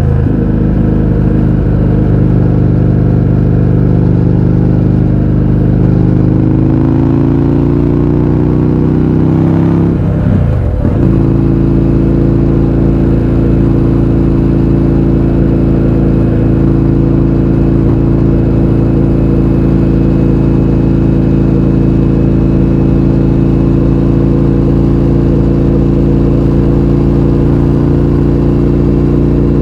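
Indian FTR 1200's V-twin running through an Akrapovič exhaust with the baffles removed, pitch rising steadily under acceleration for about ten seconds. There is a brief sharp break in pitch around ten seconds in, after which the engine holds a steady pitch for the rest.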